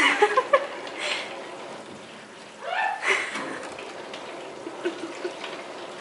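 Water running through household plumbing pipes, a steady rushing hiss, with brief vocal sounds at the start and about three seconds in.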